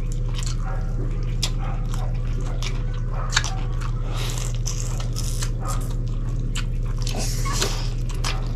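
Mouth sounds of grilled chicken inasal and pork barbecue being bitten and chewed: a run of short wet smacks, crunches and clicks, with one sharper snap a little after three seconds in. A steady low hum runs underneath.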